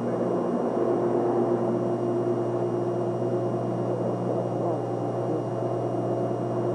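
A steady low droning hum with several held tones, unchanging throughout.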